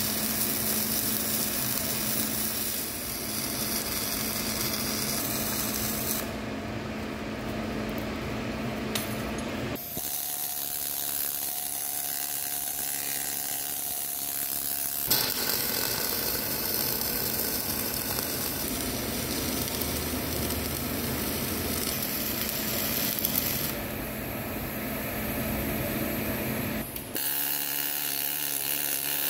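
Pneumatic needle scaler hammering on a fresh weld bead on a steel pin spacer, knocking the slag off the weld. It runs continuously, and its sound shifts abruptly a few times.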